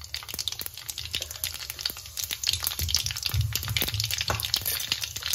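Mustard and cumin seeds spluttering in hot oil in a kadhai for a tadka (tempering): rapid, irregular pops and crackles over a sizzle.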